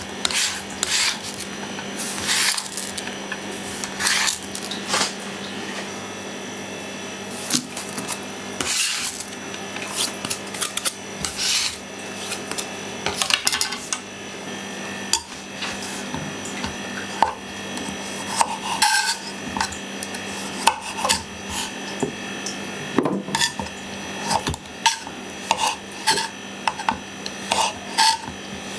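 Kitchen prep sounds: a knife tapping and scraping on a wooden cutting board among diced red onion, the onion handled in a wire mesh strainer over a bowl, and near the end a knife slicing radishes. They come as scattered clicks, knocks and raspy scrapes over a low steady hum.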